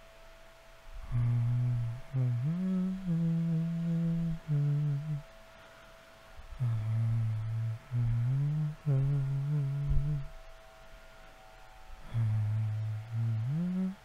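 A man humming a slow tune in long held low notes. The humming comes in three phrases a few seconds each, with short pauses between them, and a faint steady high tone runs underneath.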